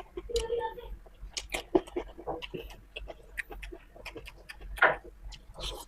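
Close-up eating sounds: wet chewing, lip smacks and mouth clicks while eating spicy beef jerky with green chili sambal, with a short hummed "mm" near the start.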